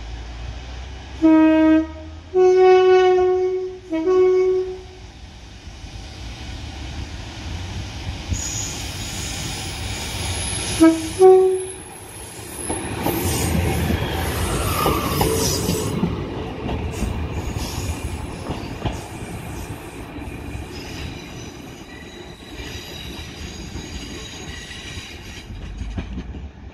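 Transport for Wales Class 175 diesel multiple unit sounding its two-tone horn: three blasts (short, long, short), then two short blasts about 11 seconds in. A thin high squeal comes just before the train rumbles past along the platform, loudest a few seconds after the last horn, then slowly easing.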